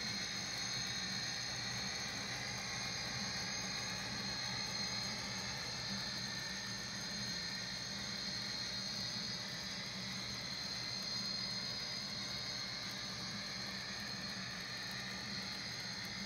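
HO-scale model freight train of tank cars rolling steadily along the track: a continuous whir with a faint high squeal from the wheels on the rails, over a steady low hum.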